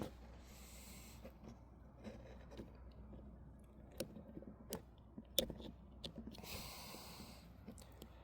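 Faint, scattered metallic clicks and taps as a screwdriver tip is worked around a snap ring to pry it off, a few sharper ticks a little past the middle. Two soft breathy hisses come in between.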